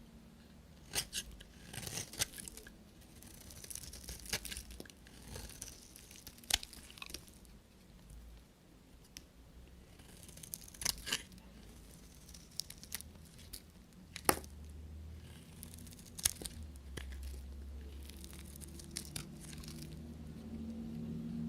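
A knife cutting through bars of dry soap: irregular sharp cracks and short crunchy scrapes as the blade goes through, one after another, with a few louder snaps about two, eleven, fourteen and sixteen seconds in.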